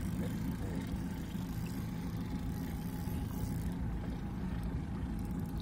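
Boat motor idling, a steady low hum.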